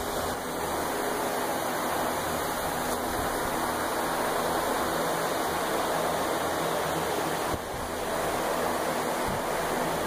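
Greenhouse circulation fans running: a steady rush of moving air with a low motor hum underneath.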